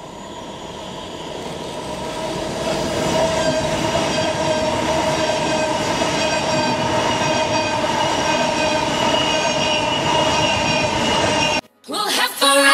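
Thameslink Class 700 electric multiple unit running along the platform, its traction motors whining with several steady tones over wheel-on-rail noise, growing louder over the first couple of seconds as it approaches. The sound cuts off abruptly near the end, where dance music starts.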